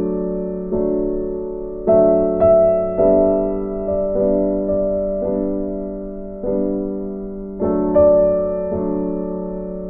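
Slow, gentle piano background music: chords struck about once a second, each ringing on and fading before the next.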